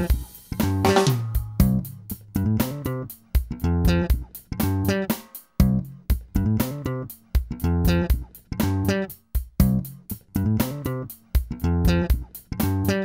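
Background music of plucked guitar and bass with a steady rhythmic pulse.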